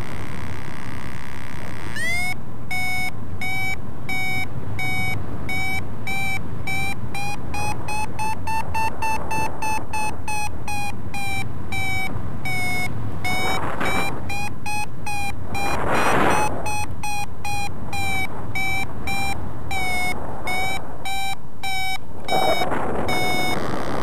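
Paragliding variometer beeping fast, a rapid series of short beeps starting about two seconds in whose pitch drifts up and down a little: the climb tone that signals the glider is rising in lift. Wind rushes over the microphone throughout, with a couple of louder gusts.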